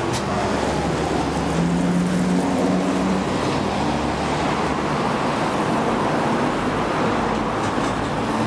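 Steady hum of outdoor road traffic, with no single event standing out.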